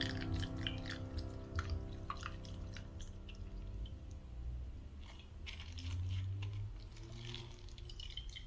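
Hot milk tea pouring in a thin stream from a pan into a glass bowl of beaten eggs as a whisk stirs: soft liquid splashing with scattered light clicks. The slow pour tempers the eggs so they do not scramble.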